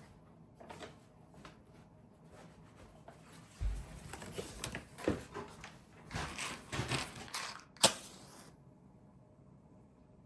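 Small handling noises indoors: scattered light clicks, knocks and rustles of objects being moved, busiest in the middle, with one sharp click near the end before it goes quiet.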